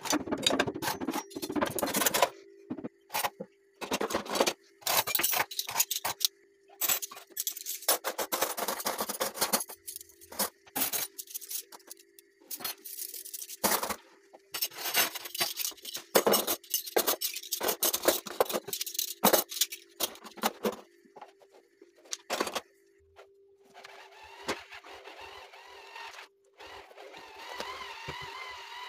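Irregular close scraping and clicking: many short, sharp sounds in quick runs with brief gaps, over a faint steady hum. Near the end they give way to a softer steady hiss.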